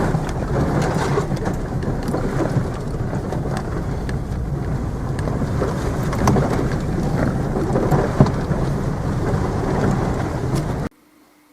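Steady rain falling, a dense hiss with many individual drop hits over a low rumble; it cuts off abruptly near the end.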